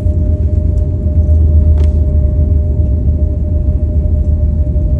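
Steady low rumble inside an airliner cabin during the landing rollout on the runway, with a steady hum over it and a faint tick about two seconds in.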